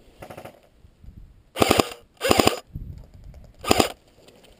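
Airsoft gun firing three short full-auto bursts of rapid clicking shots, each about a third of a second long. A few faint clicks come before the first burst.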